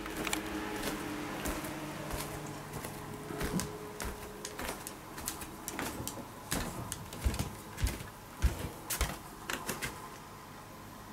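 Irregular light clicks and knocks, sparse at first and coming thicker and louder in the second half, with two sharper knocks a little past the middle.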